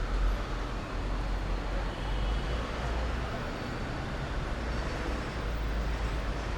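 Steady street-traffic ambience: a continuous low rumble of passing vehicles with a wash of city noise.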